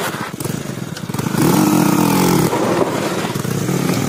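Motorcycle engine running under way. It revs up and gets louder about a second and a half in, then holds a fairly steady pitch.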